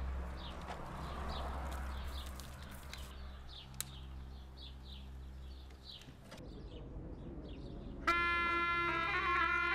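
Birds chirping over a low rumble. About eight seconds in, a shrill reed pipe, the surle (zurna), starts playing a loud held note that shifts pitch slightly.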